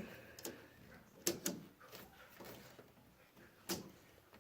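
Faint, scattered sharp clicks and knocks of channel-lock pliers on the plastic drain pump filter cap of a front-loading washing machine as the tight cap is turned, the loudest about a second in and another near the end.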